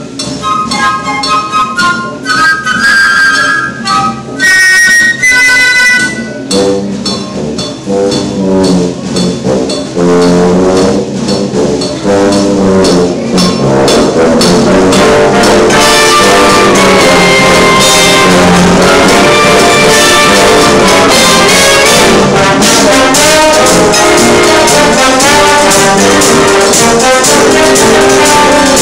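A small wind band with saxophones, brass, a tuba and a drum kit plays live under a conductor. A few instruments carry a thin melody at first. The music fills out, and from about halfway the whole band plays at full strength with drums and cymbals keeping the beat.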